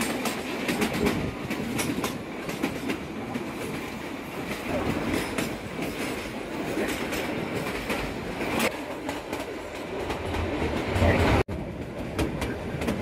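Kalka–Shimla narrow-gauge train heard from aboard a carriage: steady rattling and running noise of the coach, with wheels clicking over the rail joints. The sound cuts out for an instant near the end.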